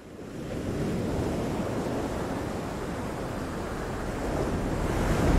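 Ocean waves and wind, a steady rushing surf sound that fades in and swells to its loudest near the end.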